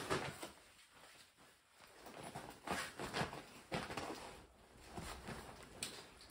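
Clothing rustling and feet shuffling as a man dresses, pulling a pair of heavy work trousers on over his legs. There are irregular short rustles and soft knocks, quieter for the first two seconds and busier after that.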